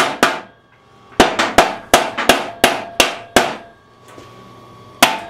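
Short-swing hammer blows on a socket used as a drift, driving the top bearing out of a riding-mower deck spindle: quick metal-on-metal strikes about three a second, with a short ring after each. Two strikes, a pause, a run of about eight, then after another pause a single blow near the end.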